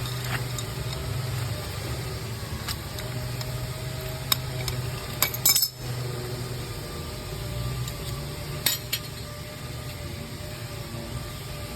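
Stud-welder dent puller at work on a car body panel: a steady electrical hum with a few sharp metallic snaps and clicks as pull rings are welded on and pulled, the loudest cluster about five seconds in and two more near nine seconds.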